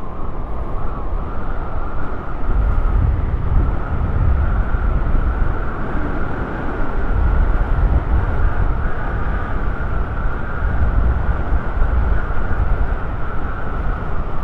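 Steady wind rushing and buffeting on the microphone of a scooter rolling fast downhill on asphalt, mixed with the rolling noise of its tyres.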